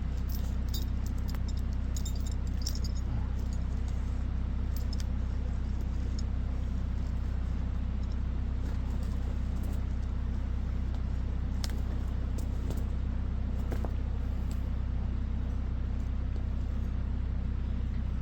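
A steady low engine hum that holds an even level, with a few faint clicks and knocks over it.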